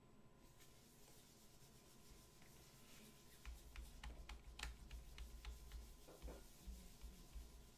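Near silence: quiet room tone, with a handful of faint clicks and taps starting about three seconds in, over a low rumble.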